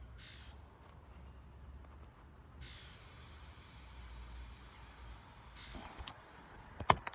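Air hissing steadily out of an inflated inner tube for about three seconds. Near the end, handling noise and one sharp knock as the camera is moved.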